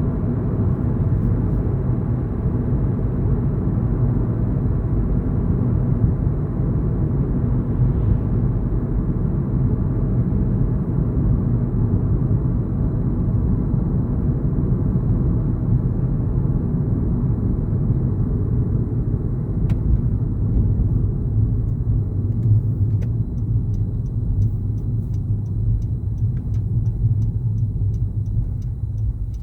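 Car driving at road speed: a steady low rumble of tyre and engine noise, easing off right at the end.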